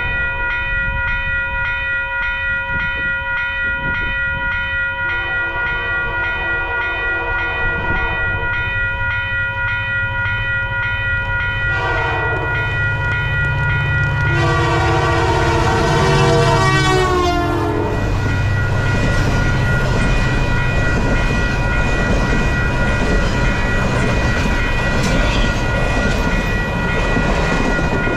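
Freight-style diesel locomotive CP 2249 sounding its horn in three blasts, two long with a short one between; the last drops in pitch as the locomotive passes. Then the rumble and clatter of its boxcars and passenger cars rolling by. A steady ringing tone carries on throughout.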